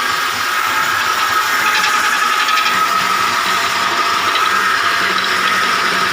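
Broom-handle sanding machine running steadily, a high whine over a rushing hiss of the abrasive working on the wooden handle.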